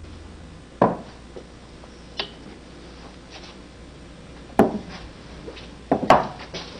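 A few scattered knocks and clinks of dishes and kitchen things being handled, with four sharper strikes a second or more apart; the two near the end are the loudest.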